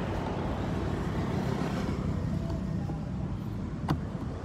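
Steady low rumble of road traffic, with a single sharp click near the end.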